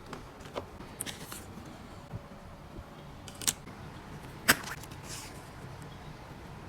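Small objects being handled: soft rustling with two sharp clicks, about three and a half and four and a half seconds in, the second the louder.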